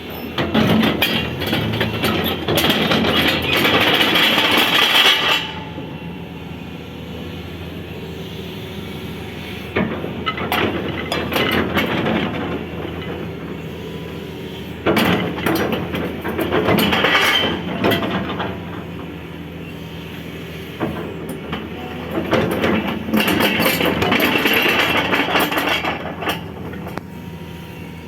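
Caterpillar 320 excavator's diesel engine running steadily, with four spells of several seconds each where it gets louder and rattles, with metallic clanking and clicking as the machine works.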